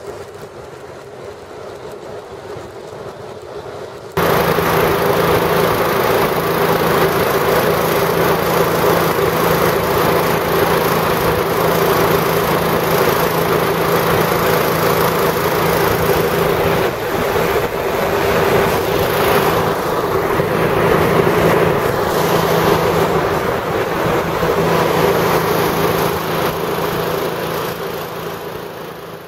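Hovercraft engine and propeller running steadily under way, heard from on board over wind and water noise. It comes in abruptly and loud about four seconds in after a quieter stretch of wind and water, then holds an even drone and fades at the end.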